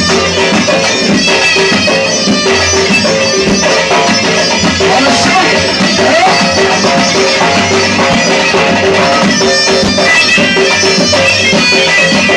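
Traditional southern Tunisian folk music: a reed wind instrument plays a melody over a steady drone, with a drum beating a steady pulse underneath and no singing.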